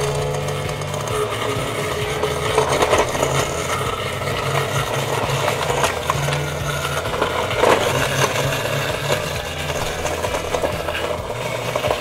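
Garbage disposal running steadily, its motor humming under a rough grinding noise as it blends a fruit smoothie mixture fed in through a hose.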